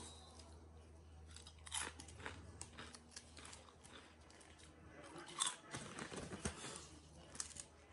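Faint, scattered crunches and clicks of things being handled at a kitchen counter, over a low steady hum.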